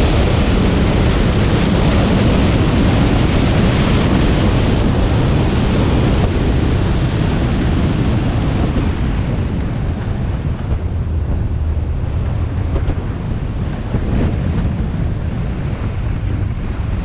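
Honda S2000 on the move: steady wind and tyre rush with a low engine hum underneath. It eases off in the second half as the car slows.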